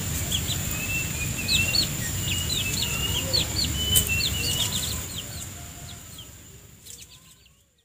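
Many short, quick high chirps and calls from birds around a flock of chickens, over a steady high-pitched whine. The sound fades out over the last few seconds.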